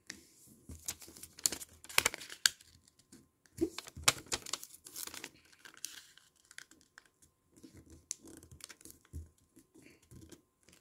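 Square origami paper being folded and creased by hand: irregular crinkling and rustling of the paper, with the loudest crackles about two and four seconds in, then lighter rustles and scratches.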